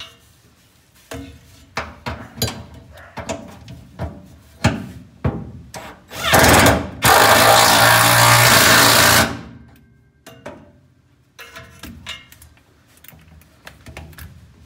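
Metal clicks and knocks of a new rear shock absorber and its bolt being fitted, then a loud cordless drill running hard for about three seconds, driving the shock's mounting bolt. A few more clicks follow.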